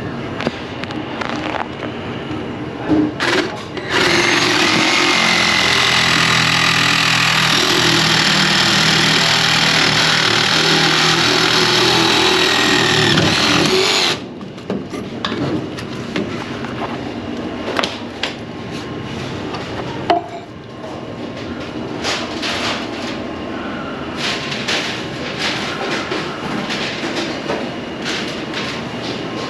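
A power tool runs loudly and steadily for about ten seconds, then stops abruptly. Scattered clicks and knocks come before and after it.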